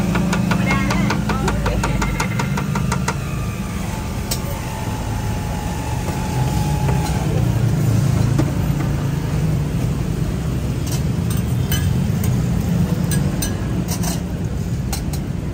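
Motorbike engines running in the street traffic close by, a steady low hum throughout. In the first three seconds a knife taps rapidly on a cutting board as a banana is sliced, and a few sharp clicks of metal utensils come near the end.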